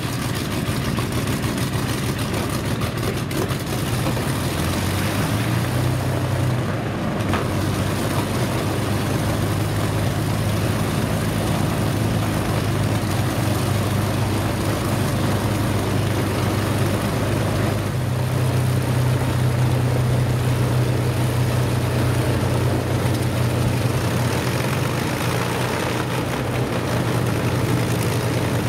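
Avro Lancaster bomber's Merlin V12 piston engines running at idle on the ground: a steady low drone whose note shifts about six seconds in and grows stronger around eighteen seconds in.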